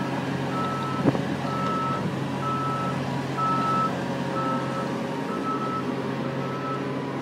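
Cat 330D tracked excavator on the move: a steady diesel engine drone under its travel alarm, which beeps at one pitch about once a second. One sharp knock about a second in.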